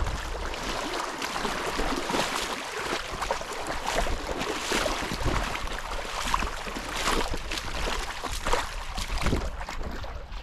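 Water splashing and sloshing in irregular strokes, as of wading through a shallow stream, with a low wind rumble on the microphone.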